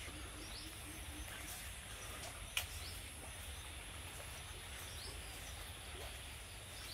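Quiet outdoor ambience: a few faint bird chirps over a steady low rumble and a thin steady high-pitched tone, with one sharp click about two and a half seconds in.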